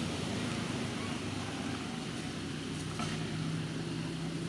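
A motor vehicle's engine rumbles steadily, and a low hum comes in about three seconds in.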